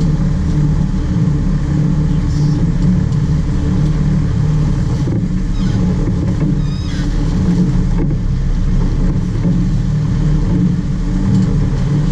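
Fishing boat's engine running steadily, a loud low drone with the hull and water noise of a boat under way.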